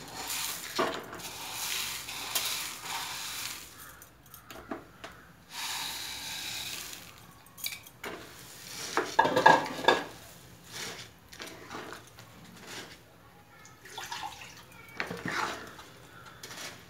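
Dry saravle rings being poured and scraped off a ceramic plate with a wooden spatula into a pan of chicken in coconut milk, a rustling rattle in two spells. About nine seconds in there is a loud clatter of the plate and spatula against the pan. After that comes the scattered knocking of the wooden spatula stirring in the pan.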